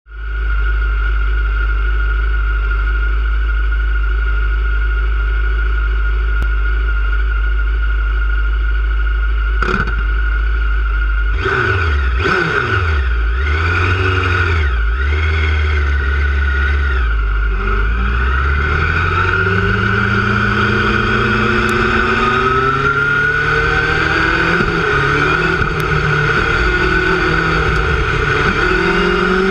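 Single-seater race car's engine heard onboard: idling steadily, then blipped sharply several times a little past the middle, then the note climbs as the car pulls away and accelerates hard. A single sharp knock comes just before the blips, and a steady high whine sits under the engine.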